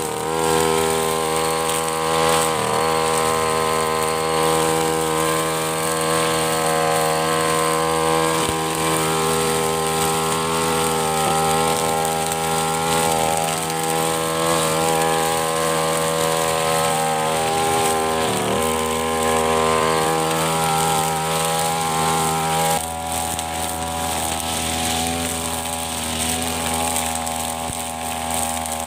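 Backpack brush cutter's engine running steadily at high speed while cutting long grass, its pitch dipping briefly a couple of times. The sound turns a little quieter about three-quarters of the way through.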